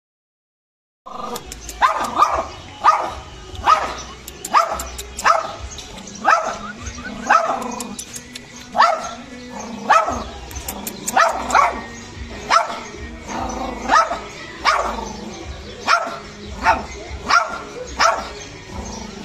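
Pekingese dog barking over and over, a sharp bark about every three-quarters of a second, starting about a second in after a short silence.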